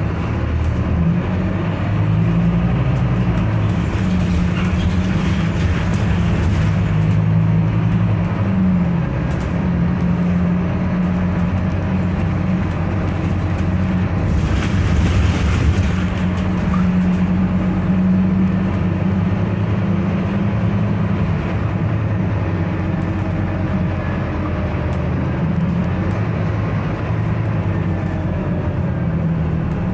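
Engine and drivetrain of a Scania K310UB city bus droning steadily, heard from inside the passenger cabin with road noise. The engine note shifts slightly in pitch a few times, and a louder rush of noise swells briefly about halfway through.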